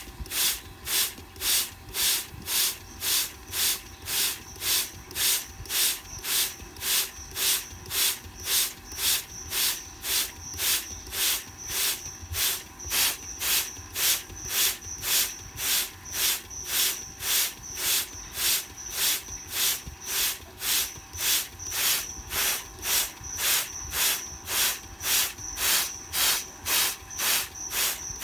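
Hand trigger spray bottle spritzing water in short, even bursts, about two squeezes a second, misting a frog's foam egg mass so the newly hatched tadpoles wash down into the water below.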